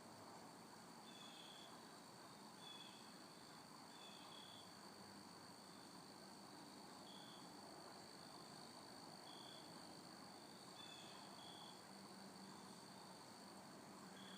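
Near silence: faint outdoor ambience with a steady high insect drone and short high chirps repeating every second or so.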